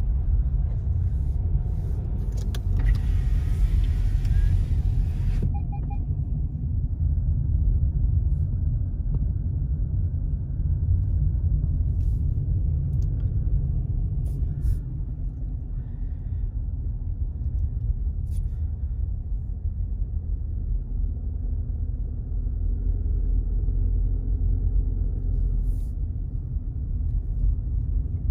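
Car driving on a snow-covered road, heard from inside: a steady low rumble of tyres and engine. A louder hiss rises for a couple of seconds about three seconds in.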